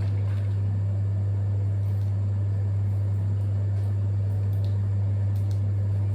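A loud, steady low hum over a faint hiss, with a few faint ticks.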